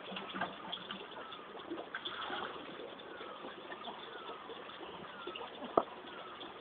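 Birds chirping in short, repeated falling notes over faint background hiss, with one sharp knock near the end.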